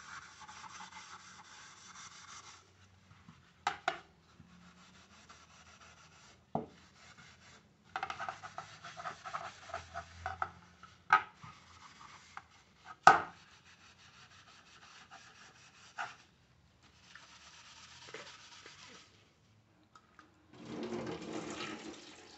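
Sponge scrubbing an aluminium pan lid with homemade polishing paste, in several spells of rubbing, with a few sharp knocks between them. Near the end a tap starts running water onto the lid.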